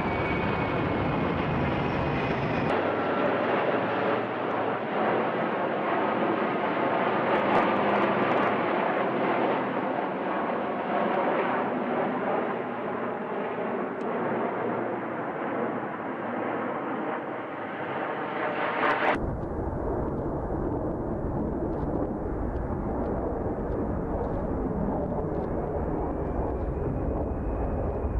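Military transport aircraft engines running, a steady loud rushing noise with a faint high whine at the start and again near the end. The sound changes abruptly about three seconds in and again past the middle, as from cuts between different recordings.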